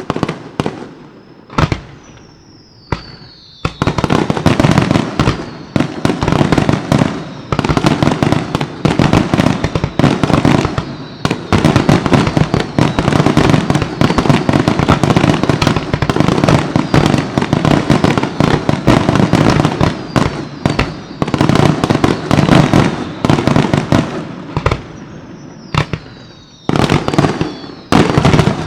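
Aerial fireworks shells bursting. A few separate bangs and a whistle falling in pitch, then from about four seconds in a dense barrage of bangs and crackling lasting some twenty seconds. Near the end it eases back to separate bangs with another falling whistle.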